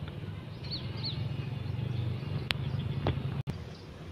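A low, steady engine hum. A bird gives two short falling chirps about a second in, and two sharp clicks come in the second half.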